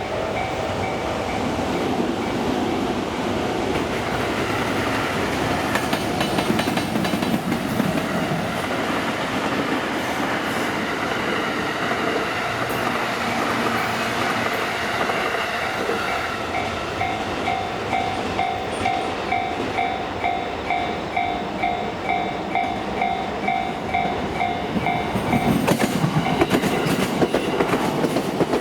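Trains running through a Japanese railway level crossing, steel wheels clattering over the rail joints, while the crossing's warning bell rings on in a steady two-tone ding about twice a second. The bell is clearest near the start and through the second half, and the wheel clatter grows louder near the end.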